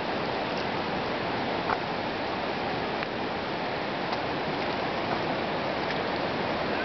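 River water rushing steadily over rock shoals: a constant, even hiss of flowing water.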